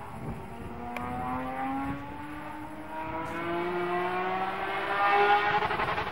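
BMW E21 sports sedan race car's engine under hard acceleration, one long pull with the pitch rising steadily for about five seconds. It grows louder as the car approaches, is loudest near the end, then falls away suddenly.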